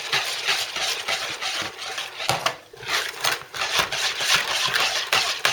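A utensil beating egg and lemon juice in a bowl, with rapid clicking and scraping against the bowl's side and a brief pause about two and a half seconds in.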